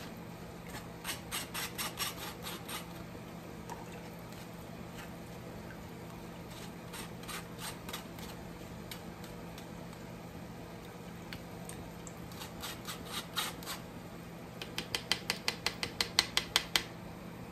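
A spoon scraping blended red chile sauce through a fine wire-mesh strainer, pressing out the seeds, in short runs of strokes. The strokes come fastest and loudest near the end, about four or five a second, over a faint steady low hum.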